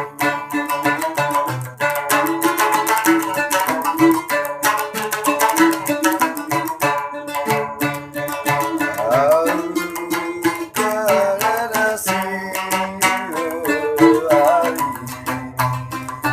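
Large Sasak gambus, a plucked lute, playing a fast run of plucked notes in a steady rhythm as an instrumental passage of cilokaq music.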